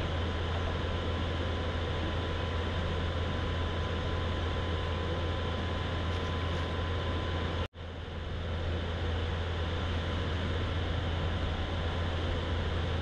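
Steady running noise of a kayak under way on its electric outboard motor, with a low hum and a faint steady whine. About two-thirds of the way through, the sound cuts out for an instant and then comes back.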